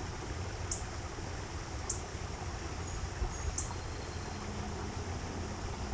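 Steady rush of running water with a low rumble underneath, and three short, high bird chips spread through it.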